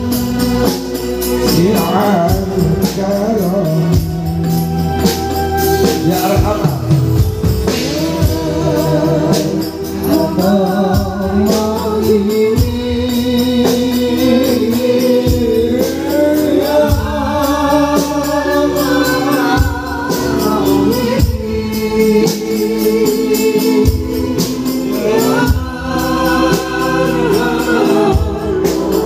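Live devotional song: voices singing together over frame drums, with tambourine jingles keeping the beat.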